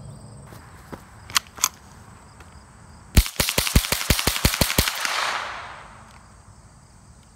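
Ruger 10/22 semi-automatic .22 rimfire rifle fired in rapid succession, about ten sharp shots in under two seconds, followed by a hiss that fades away.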